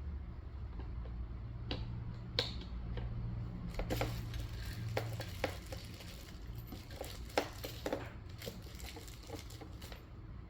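Parts of a folding shopping cart being handled and fitted together during assembly: scattered clicks and knocks, thickest between about four and eight seconds in, over a low steady hum.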